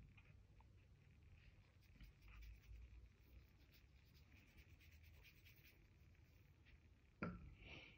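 Faint brushing of a wet watercolour brush stroking across paper, in short soft strokes. A single light knock near the end.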